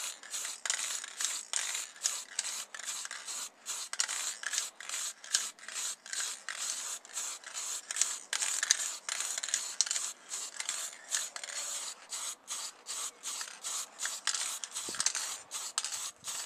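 Aerosol spray paint can hissing in rapid, short bursts, spraying paint on in quick passes.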